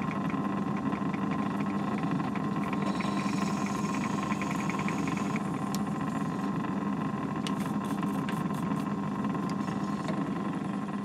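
Myford ML7 lathe running steadily with a hum while a twist drill in the tailstock chuck cuts through a metal block spinning in the four-jaw chuck. Rapid faint ticking from the cut comes and goes in the middle, with a few sharp clicks near the end.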